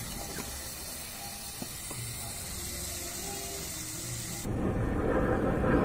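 Pumpkin, prawns and oil sizzling in a metal pan over a wood fire: a steady hiss with a few faint crackles. About four and a half seconds in, it cuts to a louder, lower rushing noise.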